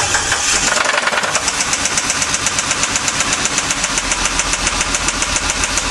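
Chrysler 2.7 L DOHC V6 running at idle just after starting, with a rapid, regular knock, several knocks a second: rod knock from a worn connecting-rod bearing.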